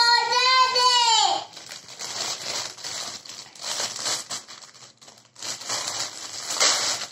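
A child's voice in a drawn-out exclamation, then packaging crinkling and rustling irregularly for several seconds as it is handled and torn open.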